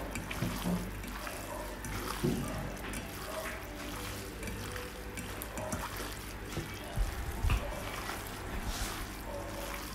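A hand squishing and mixing crumbled tofu with ground meat in a stainless steel bowl, with small irregular squelches throughout.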